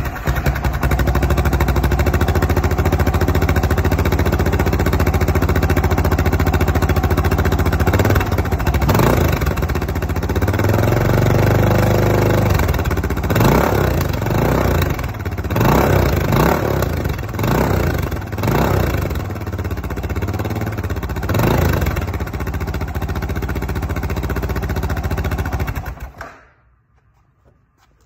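Suzuki DR650's single-cylinder four-stroke engine starting up through a Kajimotor aftermarket exhaust with its silencer cone installed. It idles steadily, then is revved in a run of about ten quick throttle blips with one longer rev among them, settles back to idle, and is shut off a couple of seconds before the end.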